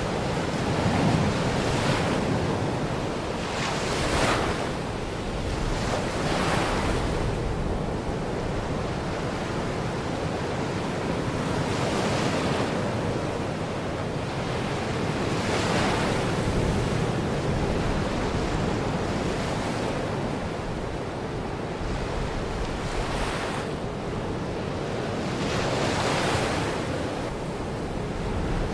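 Baltic Sea waves washing onto the beach: a steady rush of surf, with a wave breaking every few seconds, and wind on the microphone.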